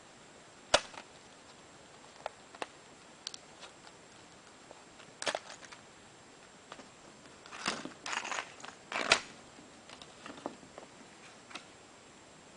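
Clear plastic blister pack being opened by hand: scattered sharp clicks and crackles of the plastic. There is a loud snap about a second in, and a busier run of crinkling near the end that finishes in another loud snap.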